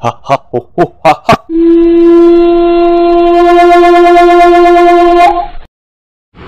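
A quick run of about seven short pitched hoots, then one long steady horn blast held for nearly four seconds that ends about five seconds in.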